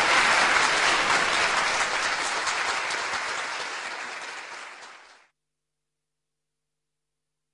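Studio audience applauding, dying away over about five seconds, then dead silence.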